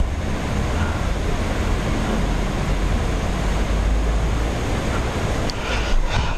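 Steady rush of river water, with a low rumble of wind on the microphone.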